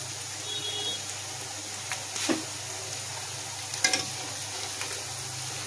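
Sliced onions sizzling steadily in hot oil in a metal wok, with whole bay leaves and spices in the oil. A metal spatula stirring them scrapes and knocks against the pan, loudest twice, about two seconds in and near four seconds.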